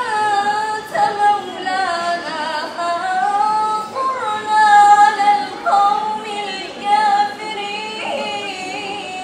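A woman's voice chanting Quran verses in melodic tajweed recitation, holding long notes and sliding between them with ornaments.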